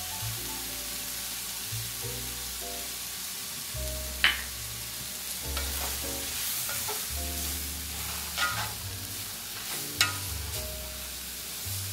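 Sliced mushrooms sizzling in butter in a cast iron skillet while a wooden spatula stirs and turns them, with a few sharp clacks of the spatula against the pan. Background music plays underneath.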